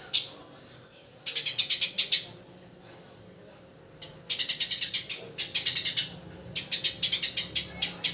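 Eurasian tree sparrow chirping: fast runs of sharp, high chirps, about eight a second, each run lasting about a second, several times with short pauses between them.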